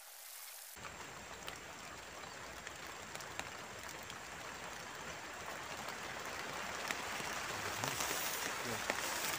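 Steady rain hiss with scattered sharp ticks of drops striking, slowly growing louder. The sound changes abruptly about a second in, as if at a cut.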